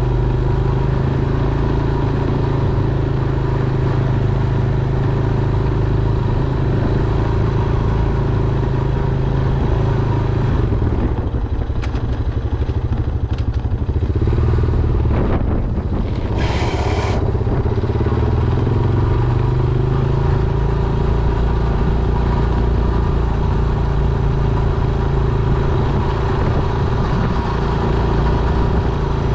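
Honda Foreman ATV's single-cylinder engine running steadily under plowing load. Its note changes partway through, with a few clatters and a brief hiss, before it settles back to the earlier steady note.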